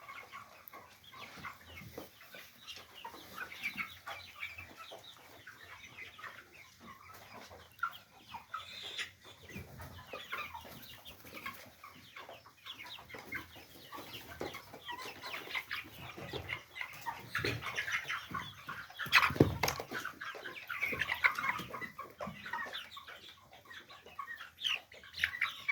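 A flock of month-old broiler chickens peeping and clucking in many short overlapping calls, with one louder thump about nineteen seconds in.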